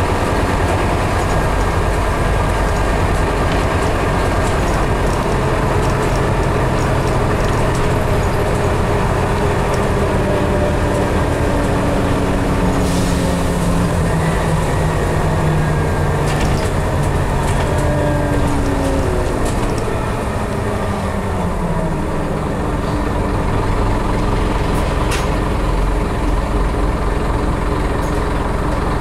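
Cabin noise of a Scania CN270UB city bus under way: the diesel engine running with a drivetrain whine that rises and falls in pitch as the bus speeds up and slows, over steady road and tyre noise. A few light rattles from the interior.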